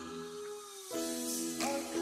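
Background music: sustained chords with a change about a second in.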